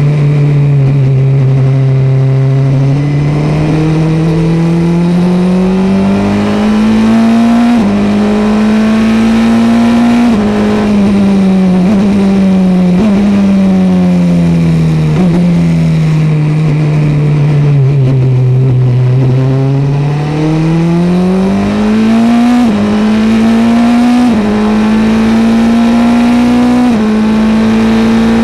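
Engine of a single-seater formula racing car heard from the cockpit, running hard at steady loudness. Its pitch sinks and climbs as the car brakes and accelerates, with small sudden jumps at the gear changes.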